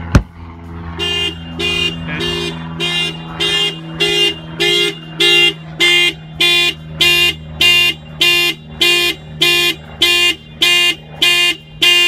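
Aftermarket car alarm siren set off as a test: a loud pitched tone pulsing on and off about one and a half to two times a second, starting about a second in. It comes just after a single sharp click, and a steady low hum runs underneath.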